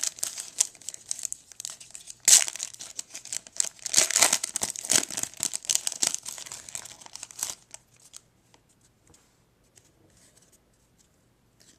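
Trading card pack wrapper being torn open and crinkled, sharpest about two seconds in and again around four to five seconds. The crinkling stops about seven and a half seconds in, leaving only faint light clicks.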